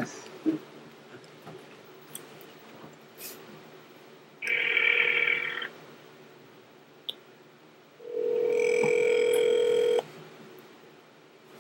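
Telephone ringback tone heard through the phone while a call is placed: two rings with a steady tone, a short one a little over a second long, then a second one about two seconds long that cuts off abruptly. A couple of sharp clicks come right at the start.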